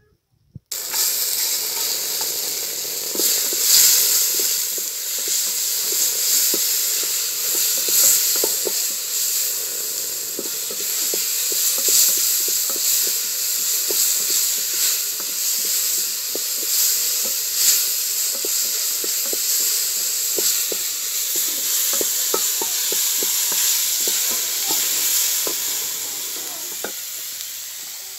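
Chicken pieces frying in a metal pot over a wood fire, sizzling loudly, with a spoon clicking against the pot as they are stirred. The sizzle starts suddenly about a second in and dies down a little near the end.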